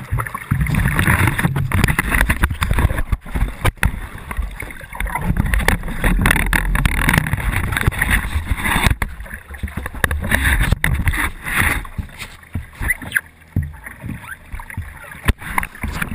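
Sea water splashing and sloshing right at an action camera mounted low on a stand-up paddleboard, broken by several sharp knocks as a soaked paddler in the water grabs and handles the board.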